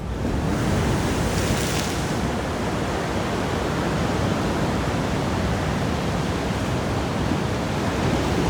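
Steady, even rushing noise with no pitch or rhythm, starting abruptly and holding level.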